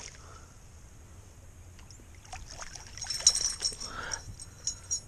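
Small hooked bass splashing at the surface beside a kayak as it is reeled in: quiet at first, then a run of irregular splashes, drips and clicks from about two seconds in.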